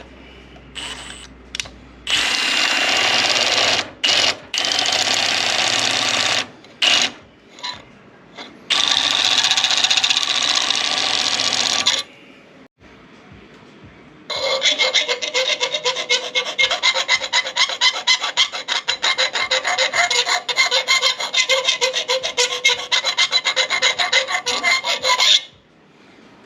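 A file scraping aluminum to true up a drilled hole that the twist bits left out of round. It comes in two long spells. The first is broken by short stops, and the second is a fast, chattering run of strokes with a metallic ring.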